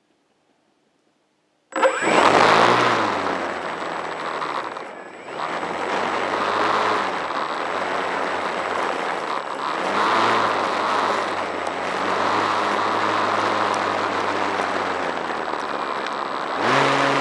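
Small drone's electric motors and propellers starting up suddenly almost two seconds in and running loud, their whine rising and falling several times as the throttle changes, then climbing in pitch near the end.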